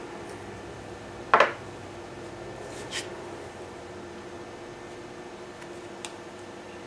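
Hand work on a solder-paste stencil laid over a circuit board: one sharp clack about a second and a half in, a short scrape near three seconds, and a faint tick near the end, as paste is spread through the stencil with a card squeegee. A steady low hum runs underneath.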